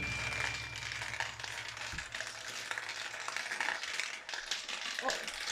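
Marbles rolling and clicking along a wooden marble run: faint, irregular small clicks and rattles.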